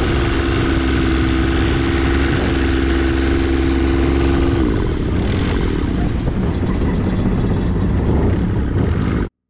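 Speedboat engine running steadily at speed, with water rushing past the hull. About halfway through, the engine's steady note shifts and sinks into the rush of water, and the sound cuts off suddenly near the end.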